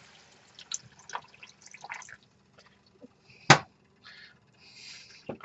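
A cooking utensil scraping and clinking against a pan of beef and water, loosening the browned bits stuck to the bottom (deglazing). Scattered light clicks, with one sharp knock about three and a half seconds in.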